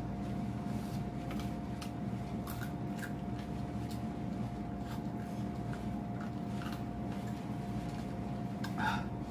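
Soft, scattered mouth clicks and smacks of someone chewing fried chicken close to the microphone, over a steady background hum with a constant tone.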